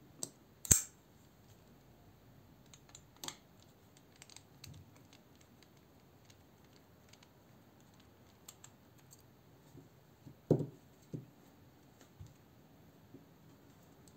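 Scattered handling clicks from a steel folding knife and a ratchet screwdriver, with a sharp metallic click about a second in and small ticks while a pivot screw is driven. Two dull knocks come a little after ten seconds, as the screwdriver is set down on the table.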